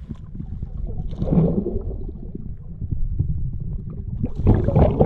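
Muffled water sound picked up by a camera held underwater: a dense low rumble full of small knocks, with two louder sloshing splashes, about a second in and near the end, as a hooked pike moves beside the boat.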